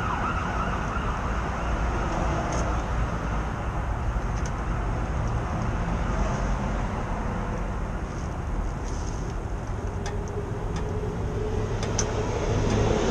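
Steady outdoor street traffic noise with a low rumble, as an emergency-vehicle siren wails and fades out in the first second. A couple of faint clicks come near the end.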